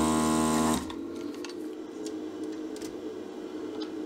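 Vacuum desoldering station's pump buzzing for about a second as the gun's trigger is pressed, sucking molten solder from an old capacitor's joint, then cutting off. A fainter steady hum with a few faint clicks follows.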